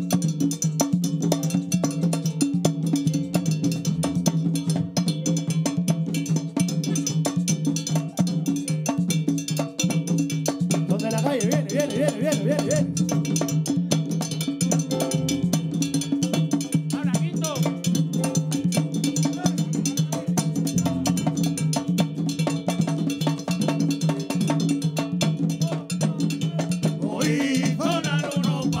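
Live Latin hand-percussion ensemble: panderos (hand frame drums) and a scraped güiro keep up a steady, dense rhythm, with short vocal calls a few times.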